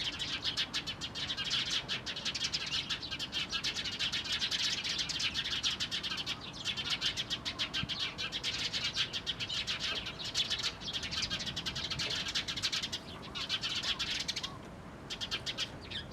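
Eurasian tree sparrows chirping in a rapid, continuous chatter of short calls, pausing briefly a few times.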